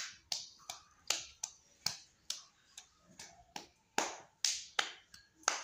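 Small child clapping hands: a run of about fifteen sharp claps at uneven spacing, some louder than others.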